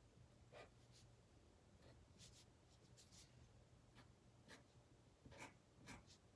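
Faint scratching of a marker being stroked across paper while colouring, in short, irregular strokes.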